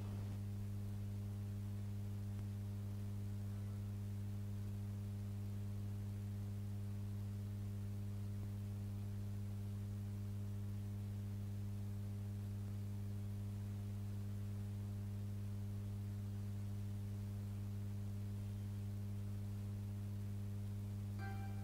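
Steady low electrical mains hum on the sound-system feed, a buzz with a ladder of higher overtones that does not change. A faint short click near the end.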